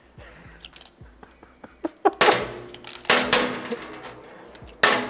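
Lithium AA batteries being pulled from a Nest smoke detector and set down one at a time on a metal table, each landing with a sharp ringing clack, about four in all from a couple of seconds in. Before that, faint small clicks as they are worked out of the battery holder.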